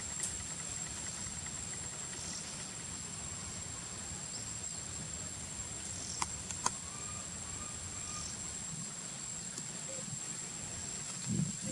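Outdoor ambience with a steady high-pitched insect drone, as of crickets or cicadas, and two sharp clicks a little past the middle.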